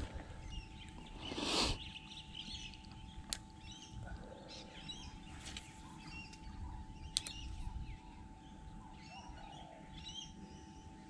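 Small birds chirping and twittering, with a brief rushing noise about a second and a half in and two sharp clicks later on.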